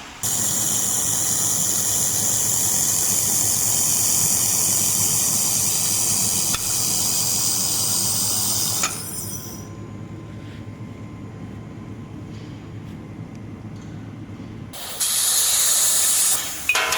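Handheld fiber laser welder firing on sheet steel: a loud, even hiss for about nine seconds that cuts off sharply. A lower steady hum follows, then a second hiss of about two seconds near the end.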